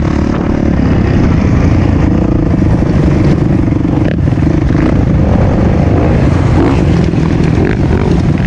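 Trail motorcycle engine running loud and steady while riding off-road.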